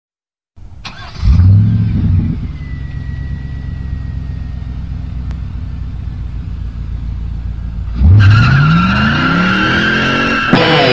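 A car engine starts with a click and catch about a second in and idles steadily. From about eight seconds it revs up, its pitch rising. Guitar-led rock music cuts in right at the end.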